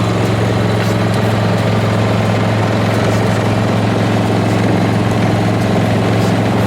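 A machine running with a steady low hum that does not change in pitch or level.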